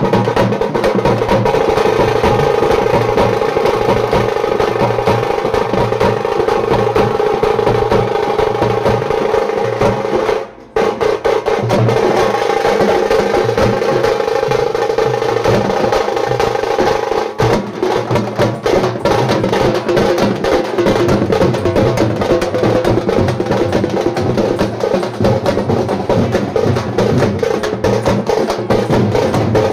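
Loud drum-led music with fast, dense percussion strokes over a steady melodic line. The sound cuts out briefly about ten seconds in.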